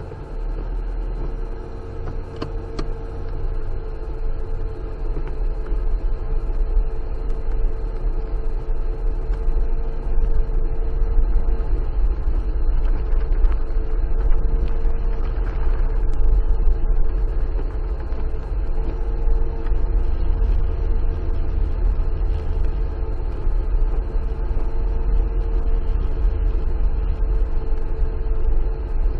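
Car engine running under load as the car climbs a muddy dirt track, heard from inside the cabin: a steady low rumble with a constant hum, growing louder over the first several seconds, with scattered light ticks throughout.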